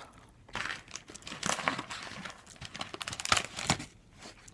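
Plastic snack pouch crinkling and rustling in the hands in a run of irregular, sharp crackles.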